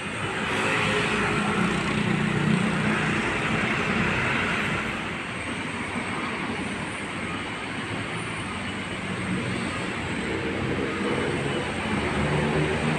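Road traffic passing close by: vehicles driving past with a low engine hum and tyre noise, loudest in the first few seconds and again near the end.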